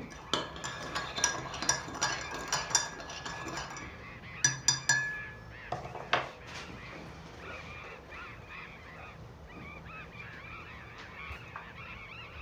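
Stirring inside a ceramic mug: a quick run of light clinks against its sides for about four seconds, then two sharper taps on the rim that ring briefly, and a single knock about six seconds in.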